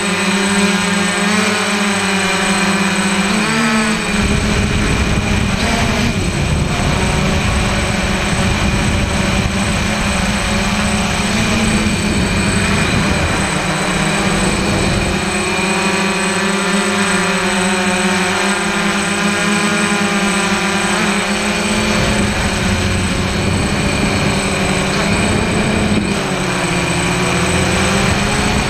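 DJI Flame Wheel F550 hexacopter's brushless motors and propellers whining steadily, heard from a camera on the craft itself, the pitch drifting up and down as the throttle changes. Wind rumble on the microphone comes and goes, strongest from about four to fourteen seconds in and again near the end.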